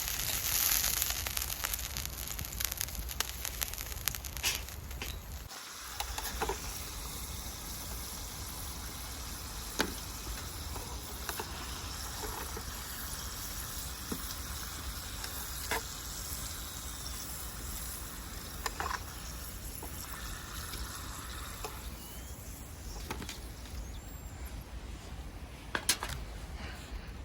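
Beef steak sizzling on an iron griddle plate: a dense hiss with fine crackles. About five seconds in it cuts to a quieter steady hiss broken by a few single sharp pops.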